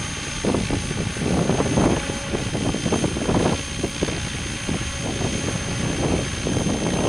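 Radio-controlled model helicopter in flight, its rotor and motor running steadily, with irregular gusts of wind rumbling on the microphone.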